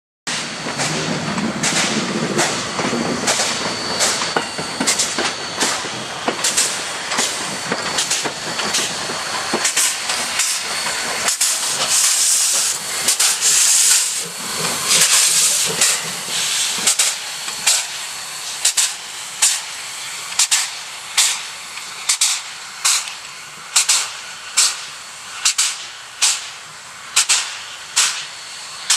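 PKP Pt47 steam locomotive working under steam, its exhaust beats coming evenly at about one and a half a second, with steam hissing from the cylinders. The hiss swells loudest around the middle, and the beats stand out cleanly toward the end.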